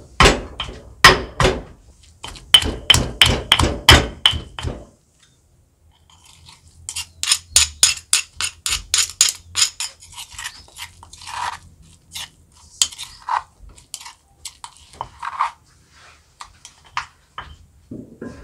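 Stone pestle pounding green curry paste in a granite mortar, a quick run of sharp thuds for the first five seconds or so. After a short pause, a metal spoon scrapes and taps paste from the mortar in fast strokes, then in scattered clinks.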